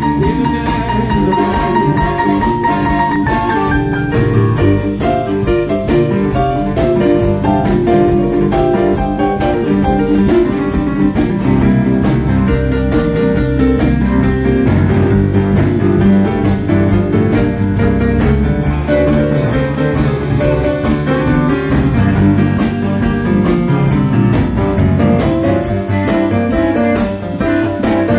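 Live band playing, with a keyboard in piano voice out front over electric guitar and drum kit, a held note for the first few seconds.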